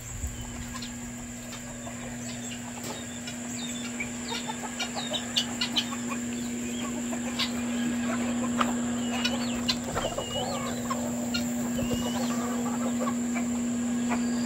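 A flock of chickens, hens and roosters, clucking and chirping, the calls growing busier after a few seconds, over a steady low hum.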